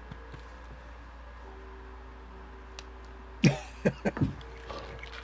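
Faint steady room hum, then about three and a half seconds in a quick cluster of four loud, sharp mouth and eating noises within about a second.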